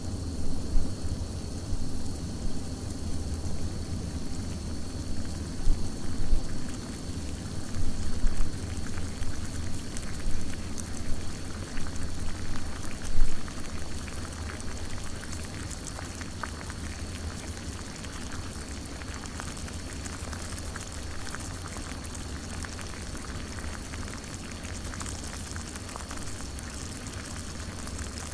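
Water boiling in a coffee pot: a low rumbling bubble with uneven surges for about the first half, settling into a steadier hiss with fine crackling.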